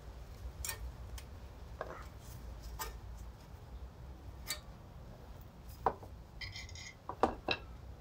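Brake pad being worked out of a car's front caliper bracket: light metallic clicks and clinks of pad on bracket and clips, a short scraping rattle past the middle, and the sharpest clicks near the end as the pad comes free.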